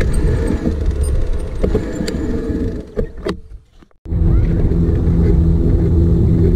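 Wind rumbling on the microphone of a bicycle-mounted action camera during a ride along a sandy track, mixed with tyre noise. The sound fades almost to nothing about three and a half seconds in, then comes back suddenly at about four seconds.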